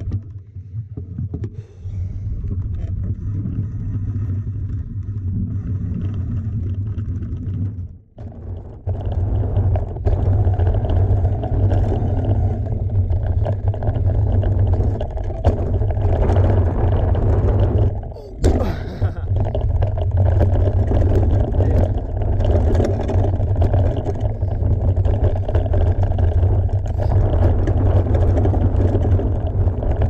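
Mountain bike ride on a dirt trail: a steady rumble of wind on the microphone and tyres on the ground. It drops away briefly twice, about eight seconds in and again about ten seconds later.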